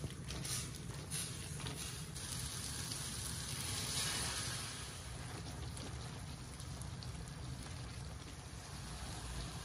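Pasta simmering in tomato sauce in an aluminium frying pan on a gas hob, with a ladle of hot water poured in about four seconds in, making a louder hiss.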